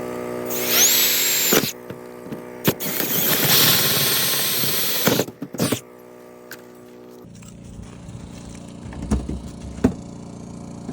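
Power drill boring holes through the wall for outside faucets, in two runs: a short spin-up with a rising whine, then a longer cut of a couple of seconds, followed by a few knocks.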